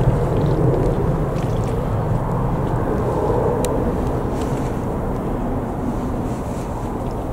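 Boeing 747-400's four jet engines rumbling as it climbs away, the sound slowly fading.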